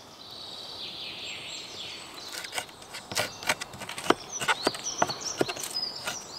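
A large fixed-blade knife cutting into the top of a wooden stump, a run of sharp, irregular knocks about three a second starting a couple of seconds in. Before them, birds chirp faintly in the woods.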